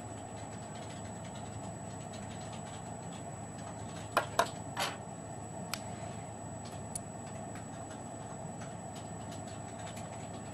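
Steady background hum, with three sharp clicks in quick succession about four seconds in and a couple of fainter ticks after: stylus taps and handling of an Agenda VR3 PDA's touchscreen.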